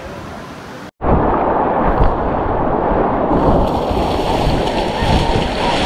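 Rushing whitewater of river rapids. A quieter stretch of water noise cuts off abruptly about a second in, and a louder, steady rush of water with a deep rumble follows.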